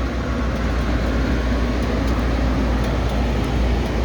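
Machinery running with a steady low rumble.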